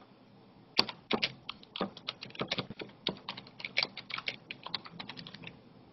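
Typing on a computer keyboard: quick, irregular key clicks that start about a second in and stop shortly before the end.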